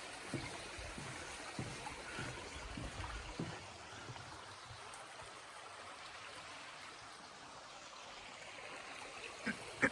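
Steady, even rushing noise, with a few soft thumps in the first three and a half seconds.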